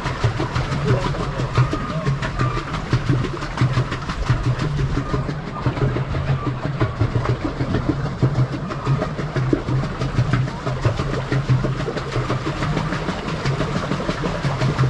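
Pedal boat under way, its pedal-driven paddle wheel splashing through the water, with a steady low hum and rapid, irregular knocking and rattling.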